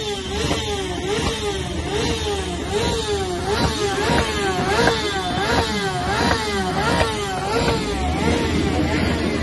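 Motorcycle engines revved over and over in a steady rise-and-fall rhythm, about three revs every two seconds.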